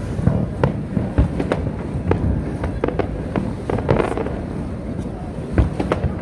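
Aerial fireworks bursting: an irregular string of sharp bangs and crackles over a low rumble, with two deeper booms, about a second in and near the end.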